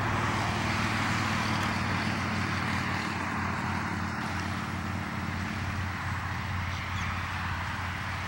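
Steady hiss of distant road traffic, with a low hum under it.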